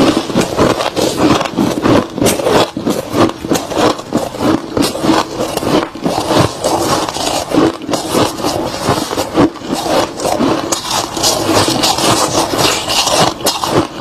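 Chunks of soft, crispy freezer frost being bitten and chewed: a dense run of crunching and crackling that goes on without pause.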